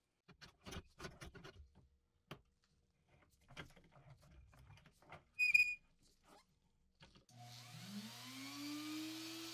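Small clicks and knocks as a rusty metal lighter is handled and clamped into a small bench vise, with a short sharp squeak about halfway through. About seven seconds in, a handheld rotary tool fitted with a diamond burr starts up: its whine rises in pitch as it spins up, then holds steady.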